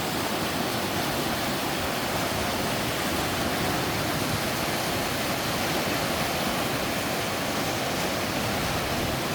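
Three-tiered sliding waterfall on a mountain stream, water pouring down sloping rock steps in a steady, even rush.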